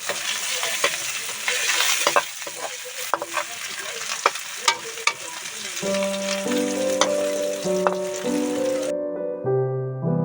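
Aloo bread spring rolls sizzling as they fry in oil, with sharp clicks of a utensil turning them. Piano music rises about two-thirds of the way through, and the sizzling cuts off suddenly near the end.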